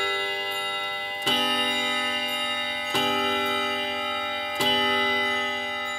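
Mechanical wall clock striking the hour: three strikes on the same note, about a second and a half apart, each left ringing on.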